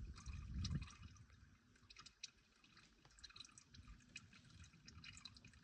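Used engine oil dripping and trickling faintly from a 2016 Jeep Patriot's drain hole into a catch bucket, the drain almost finished. A low muffled rumble in the first second.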